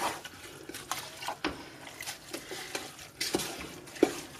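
Wooden spoon stirring wet chopped zucchini and cucumber relish in its brine in a stainless steel stockpot: wet squishing and sloshing, with irregular light knocks of the spoon against the pot.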